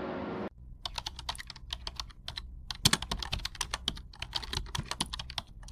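Keyboard typing sound effect: a run of quick, irregular key clicks with a few short pauses, starting about half a second in.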